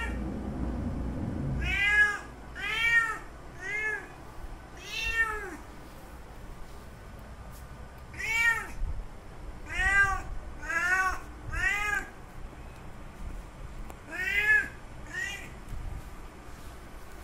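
Male cat's mating call to a female in heat: about ten drawn-out meows, each rising and then falling in pitch, coming in groups of two to four with short pauses between.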